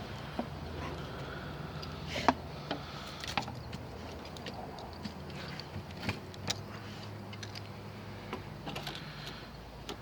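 Scattered clicks and knocks of a cheap metal multitool being handled and tried out, over a steady low hum.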